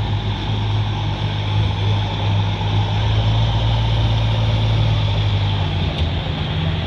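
Hot farm class pulling tractor's engine running steadily, its pitch shifting slightly partway through and again near the end.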